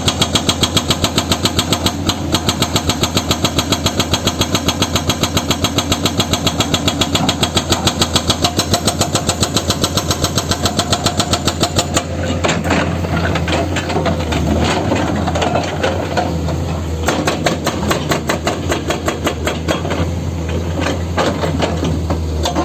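Heavy-equipment diesel engine running, with a fast, even chugging pulse for the first half, changing abruptly about halfway through to a steadier engine note broken by irregular clicks and knocks.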